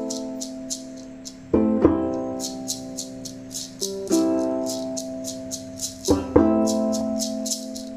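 Ukulele strumming slow chords, one strum about every two seconds, over a steady shaker rhythm and a low held drone note.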